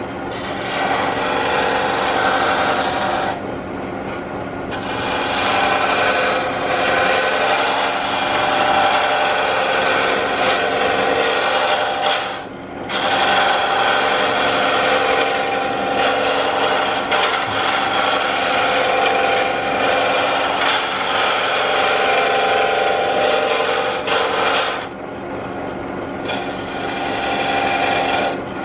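Spindle gouge cutting into a wooden blank spinning on a Jet wood lathe, a steady scraping cut in long passes that stop briefly about three seconds in, around the middle, and near the end. The lathe's steady hum continues through the pauses.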